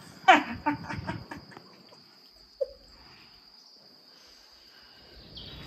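A person laughing in a quick run of bursts, falling in pitch, in the first second and a half, over a steady thin high chirr of crickets that goes on throughout.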